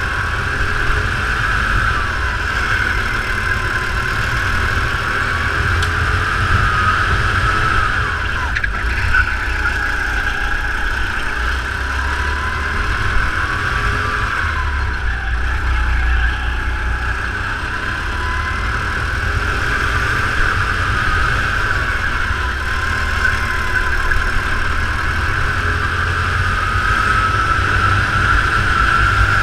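Racing kart's engine running hard, heard from on board the kart, its pitch rising and falling as the kart accelerates and slows for the corners. Under it runs a steady low rumble.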